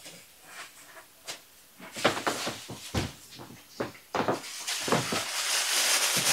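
Light knocks and thuds from footsteps and things being handled. Near the end a rustle close to the microphone rises and builds as someone brings a cone of yarn in and brushes past.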